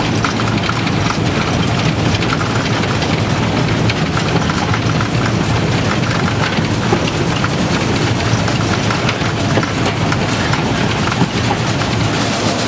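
Narrow-gauge (760 mm) steam locomotive JŽ 83-052 running under way, heard from inside its cab as a loud, steady din with many small clicks and rattles.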